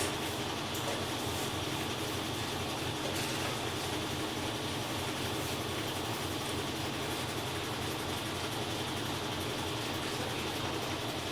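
GE Ecoperformance 15 kg washing machine (LVGE1535) in its spin cycle, running with a steady, unchanging whir and rumble.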